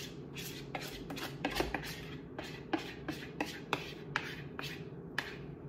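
A spatula scraping melted chocolate and peanut butter out of a bowl, a run of short, light scrapes and clicks about three or four a second.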